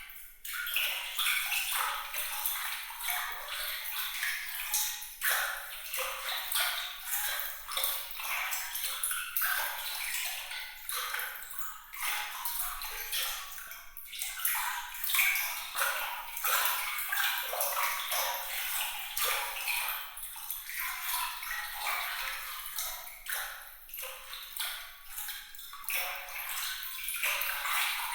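Water trickling and splashing continuously, with many small drips and plinks, all bright and high-pitched with almost no low end.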